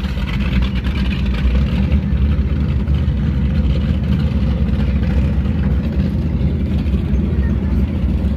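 A vehicle engine running steadily close by, a continuous low rumble.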